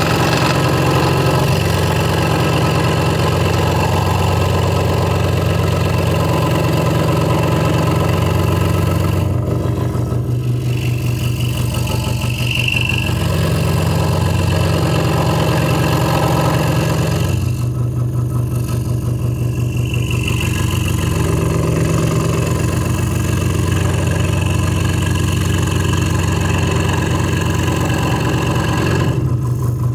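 Hegner Multicut 2S scroll saw running steadily, its blade cutting through a stack of three wooden layers. The rasp of the cut drops away briefly three times, over the saw's steady motor hum.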